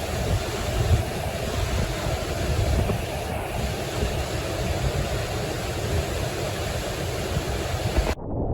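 Steady ocean surf and wind noise on the microphone, with a heavy low rumble. About 8 seconds in it cuts off abruptly and a louder, muffled sound begins.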